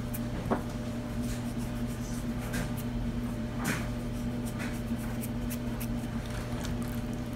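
Steady low hum with a few faint, short rustles as pinches of ground black pepper are sprinkled by hand onto raw pork chops.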